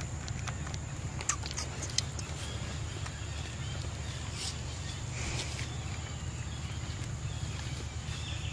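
Outdoor ambience: a steady low hum and a constant high-pitched tone, with a few faint clicks and rustles scattered through it.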